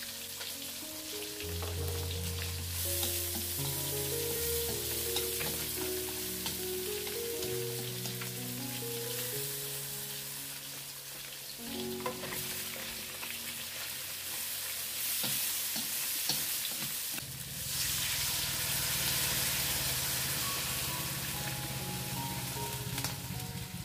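Fish steaks, onion and chilies sizzling in hot oil in a steel wok, a steady hiss that swells in stretches, with background music. A few light clicks come about twelve seconds in as more food goes into the pan.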